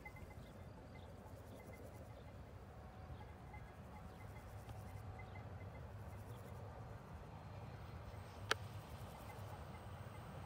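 Faint distant rumble of a Südostbahn FLIRT electric multiple unit running along the line, growing slightly louder, with insects chirping steadily. One sharp click sounds near the end.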